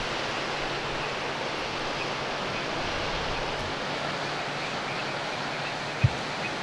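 Steady rushing of sea surf and wind, with one short low thump near the end.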